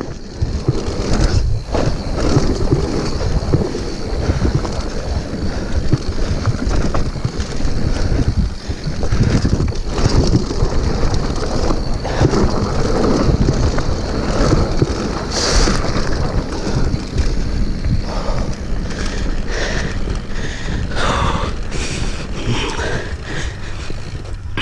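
Mountain bike riding fast down a rocky gravel trail: wind buffeting the action camera's microphone over tyres rolling on loose stone and the bike rattling over the bumps. In the last few seconds the noise thins into separate clicks and knocks as the trail flattens out.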